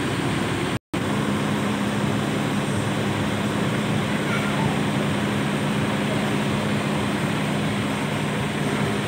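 Intercity coach's diesel engine idling with a steady low hum. The sound breaks off for an instant about a second in and then continues.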